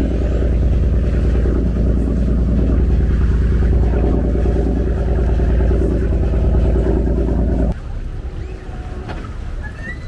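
Tour boat's inboard engine running steadily under way, a deep even drone that cuts off abruptly near the end.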